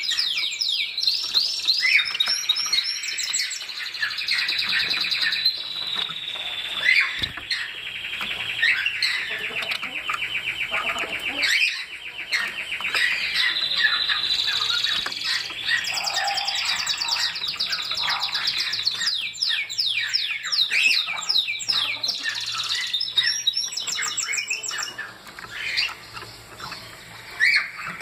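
Caged Bengalese finches (society finches) chirping and singing, a dense run of overlapping high chirps and rapid trills that goes quieter for a couple of seconds near the end before loud chirps resume.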